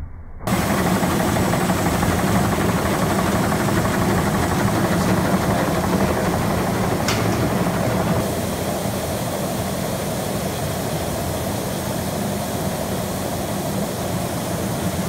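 Tobacco-processing machinery running steadily on a factory floor: a loud, even mechanical din with a steady low hum underneath. It eases slightly about eight seconds in.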